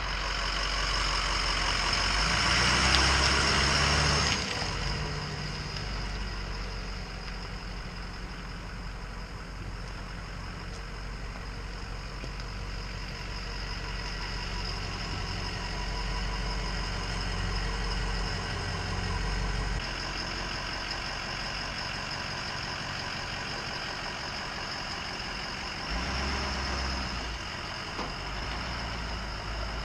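Ford 6.0L Power Stroke V8 turbodiesel in an F-250 running at low speed. It is louder for the first four seconds or so, while the truck is close by, then runs steady and quieter as the truck manoeuvres to the boat trailer.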